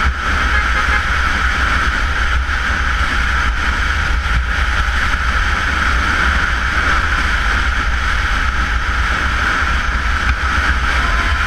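Steady wind rush and low rumble on the camera microphone of a Honda CBR motorcycle riding at speed, mixed with road and engine noise. A vehicle horn starts faintly near the end.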